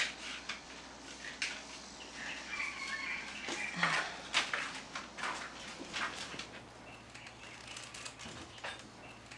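Faint birds chirping, with a few light taps and knocks scattered through it.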